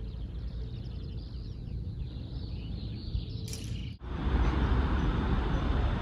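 Outdoor ambience of birds chirping over a low, steady rumble. About four seconds in it cuts abruptly to a louder, even rushing noise.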